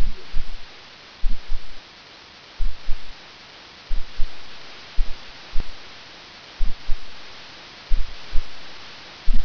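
Keys being struck on a computer keyboard, heard as dull low thumps in irregular groups of two or three about every second, over a steady hiss.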